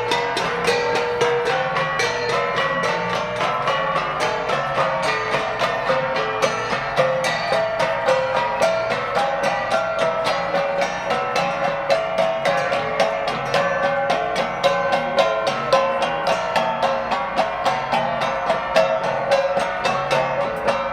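Ensemble of Cordillera flat gongs (gangsa) being beaten in a fast, steady rhythm, their metallic strikes ringing on over one another.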